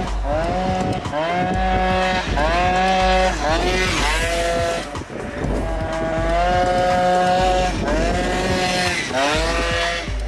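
Background music: a gliding lead melody that slides up into held notes, over a bass line that comes and goes in blocks.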